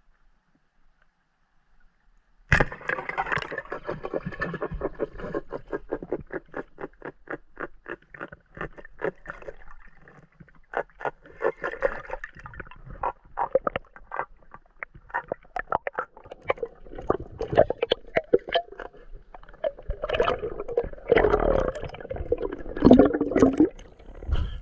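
Water gurgling and bubbling with dense rapid clicking, starting suddenly after about two and a half seconds of near silence and swelling louder near the end.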